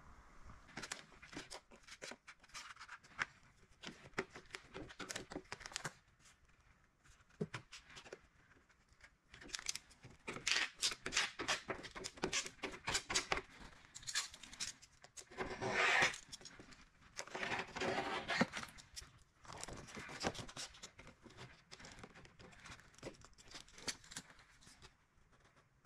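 A sheet of paint protection film being handled and peeled: crinkling and peeling sounds in irregular bursts, with scattered light taps and clicks, busiest past the middle.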